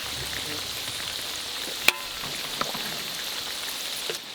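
Chips deep-frying in hot oil in a wok: a steady sizzle, with one sharp click about two seconds in.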